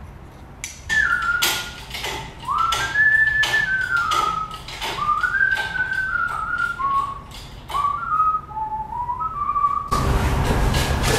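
A person whistling a tune in short, scooping notes, with sharp metallic clicks and knocks scattered through it. Near the end the whistling stops and a louder steady noise comes in.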